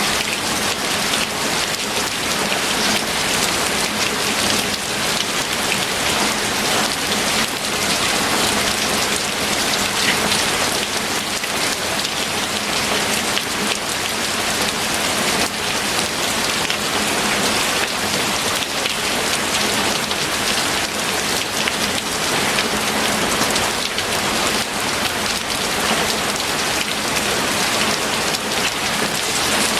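Steady rain falling, a dense hiss of many drops striking a surface.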